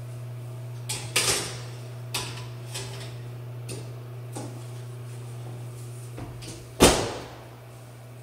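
Light metal knocks and clatter as a muffin tin goes onto an oven rack, then the oven door shut with one loud thud about seven seconds in.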